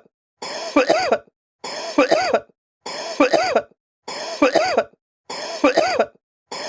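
A short human cough, looped: the identical cough repeats about every 1.2 seconds with brief silences between. Each one is a breathy start followed by quick voiced hacks.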